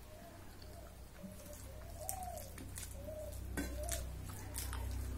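Fingers mixing rice on a stainless steel plate, giving a few sharp clicks, while a bird coos in short rising-and-falling notes behind it.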